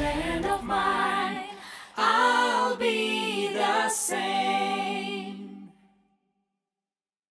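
Music: unaccompanied singing, fading out about two-thirds of the way through.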